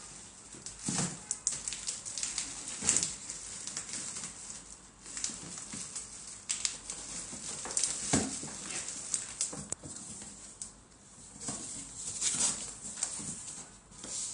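Black plastic bags of caps rustling and crinkling as they are lifted and pressed down into a cardboard carton, with irregular thuds and scrapes of cardboard. The carton's flaps are folded down near the end.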